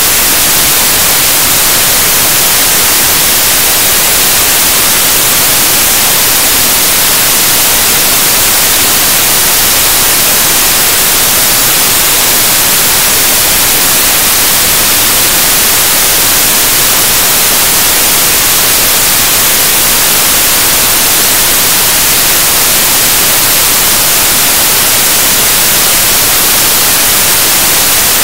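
Loud, steady static hiss like white noise, strongest in the treble, with nothing else heard through it. It stands in for the programme's sound: no speech or music comes through, even where the interviewee is seen talking.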